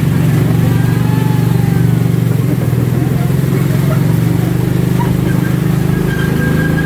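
Wulai Scenic Train (log cart) running through a rock tunnel: a loud, steady low rumble and drone from the cart's running gear on the track.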